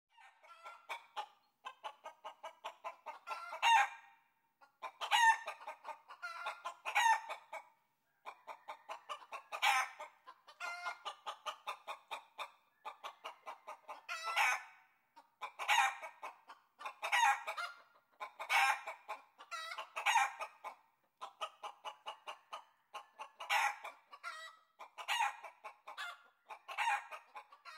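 Hen clucking and cackling: runs of quick short clucks, each ending in a louder drawn-out squawk, repeating every second or two.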